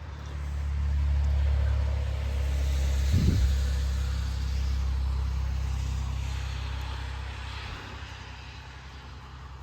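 A road vehicle driving past, swelling in the first second and then fading slowly over several seconds.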